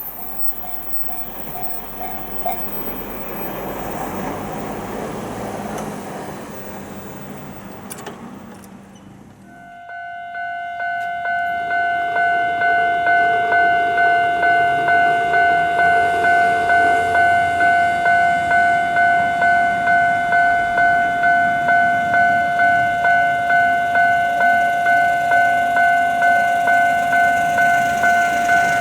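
A train runs past with wheel and track noise that fades away. After a cut about nine seconds in, a Japanese level crossing's electronic warning bell starts its steady "kan-kan" ringing, about two strikes a second.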